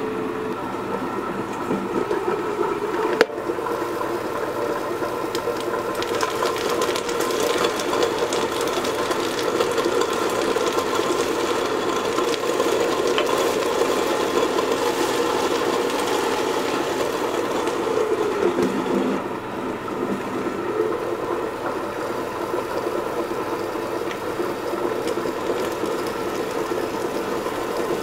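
Stone melanger running, its rollers turning and grinding chocolate in a stainless steel drum: a steady mechanical hum and rattle. There is a single sharp click about three seconds in.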